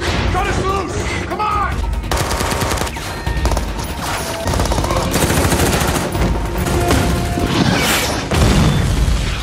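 Rapid automatic gunfire from assault rifles, long runs of shots fired in quick succession from about two seconds in, in a film action soundtrack.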